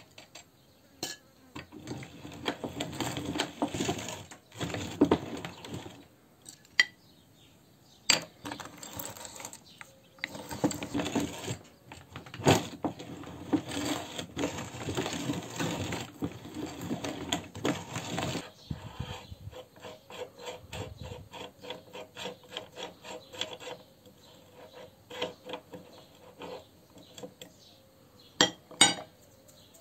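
Hand-cranked metal meat grinder crushing hard lollipop candy: a gritty crunching and grinding with many sharp cracks as the crank turns. In the second half the crunching thins to a fast run of lighter clicks, and near the end come two sharp metal clinks as the grinder's front ring is taken off.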